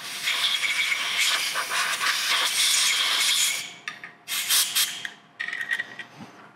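Compressed-air blow gun hissing as it blasts aluminium chips out of a freshly drilled hole: one long blast of about three and a half seconds, then a few short puffs.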